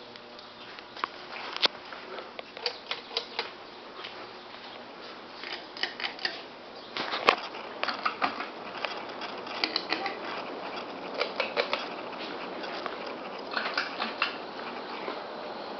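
Ceiling fans running with a steady whir, over which come irregular clusters of clicks and ticks, the sharpest about seven seconds in.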